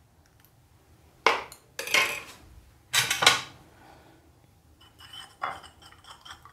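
Metal spoon clinking against a ceramic bowl as a raw egg is beaten: a few sharp knocks in the first half, then quicker, lighter clinks near the end.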